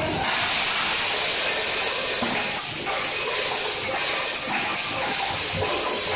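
Vertical form-fill-seal packaging machine running with a steady, loud hiss and a few faint knocks.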